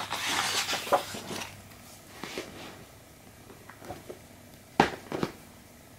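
Hardcover picture book being handled: a rustle of paper as the last page is turned and the book closed, then two sharp knocks near the end as the book is turned over in the hands.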